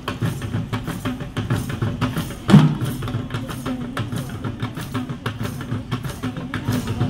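A drum band playing together: many drums beating a quick, steady rhythm, with one much louder drum hit about two and a half seconds in.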